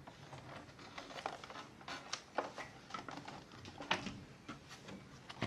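Light, irregular clicks and knocks of a compact mechanical keyboard being handled and set down on a hard surface.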